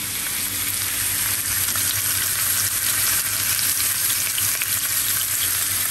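Beef chuck roast searing in hot oil in a skillet: a steady sizzle with fine crackling and spitting, growing a little louder over the first couple of seconds.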